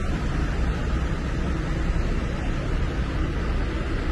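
Heavy truck hauling a trailer rolling past: a steady low rumble with road noise.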